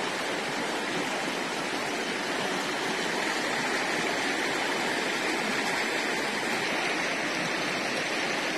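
Shallow, rocky river rushing steadily over stones.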